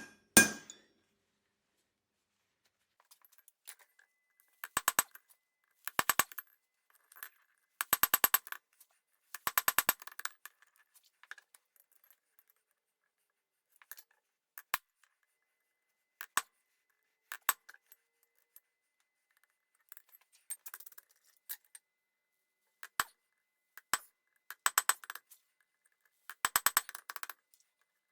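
Blacksmith's hammer striking steel on an anvil in short bursts of quick blows, each with a bright metallic ring, separated by pauses.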